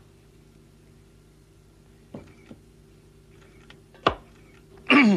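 Kitchen knife cutting through an onion and striking the cutting board: a couple of faint taps about two seconds in and one sharp knock about four seconds in, over a steady low hum.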